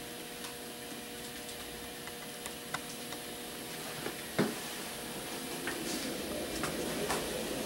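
N scale model train running through number 4 turnouts: a steady low hum and hiss with scattered light clicks as the wheels pass over the track, the sharpest click a little past halfway.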